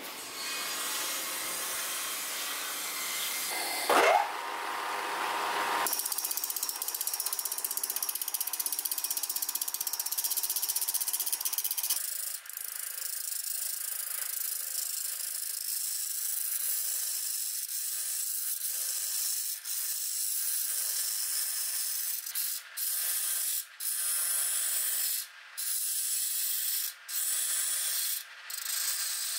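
Wood lathe turning a wooden blank as a hand-held gouge cuts it, a steady rasping hiss of the cut, with a brief loud squeal about four seconds in. Near the end the cut stops and starts several times as the tool is lifted off and set back on the wood.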